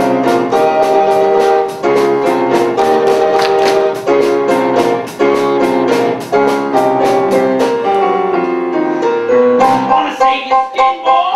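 Live pit band playing an up-tempo show number: keyboard chords over a steady beat. About ten seconds in, the music changes to short, clipped chords.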